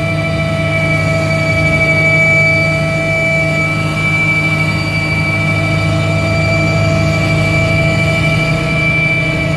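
Cabin noise of a Mi-8 helicopter in steady cruise flight: a constant low drone with several steady high-pitched whines on top.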